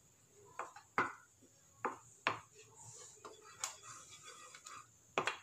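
Wooden spatula stirring thick ginger-sugar syrup in a metal pot, knocking and scraping against the pot's sides and bottom at irregular intervals.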